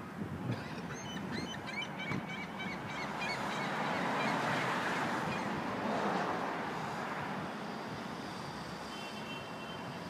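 Geese honking in short repeated calls during the first few seconds, over a steady rush of outdoor noise that swells and fades in the middle.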